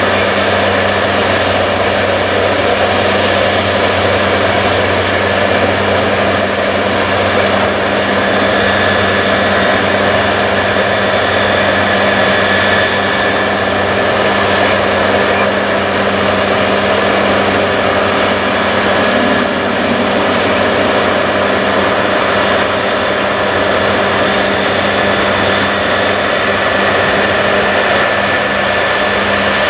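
John Deere X9 combine harvesters and a tractor running while harvesting wheat: a steady machinery drone with a thin high whine over it.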